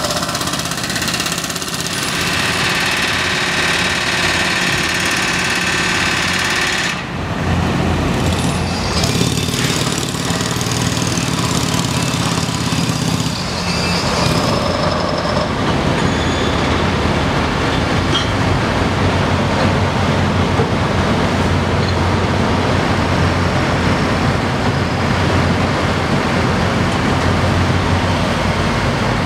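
A pneumatic jackhammer breaks concrete with a steady whine over it. About seven seconds in, the sound changes to heavy diesel construction machinery and trucks running steadily with a low rumble.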